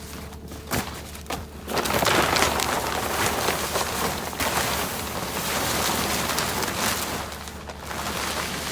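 Steady low engine hum under a dense crackling, rustling noise that swells about two seconds in and eases off near the end.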